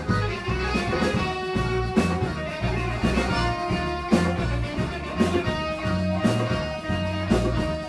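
A band playing live: guitar over a moving bass line, with regular drum hits.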